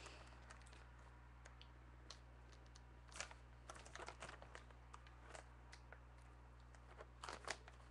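Near silence with faint handling noises: fingers clicking and rubbing on a shrink-wrapped cardboard trading-card box as it is turned over in the hands, in two small clusters, over a low steady hum.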